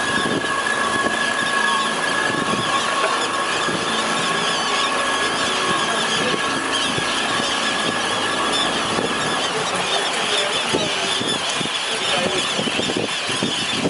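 Small motorboat's engine running, with a steady high whine that fades out about two-thirds of the way in, over the wash of choppy water against the hull.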